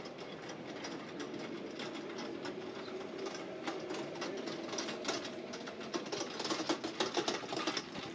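Fast, irregular clicking and clattering that grows louder near the end, over a steady low street murmur.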